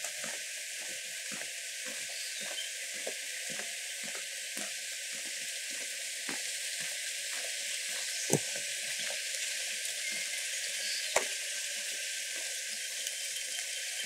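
Light rain falling with a steady hiss, scattered with irregular drips and taps, and two sharper taps about eight and eleven seconds in.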